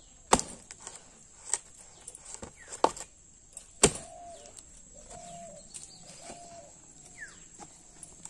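Axe chopping a dried palm frond stalk on a log: four sharp chops in the first four seconds, with lighter knocks between them. After the chops a dove coos three times, and a bird chirps once near the end.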